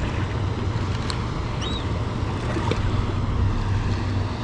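Suzuki outboard motor idling with a steady low hum, under wind and small waves slapping the boat.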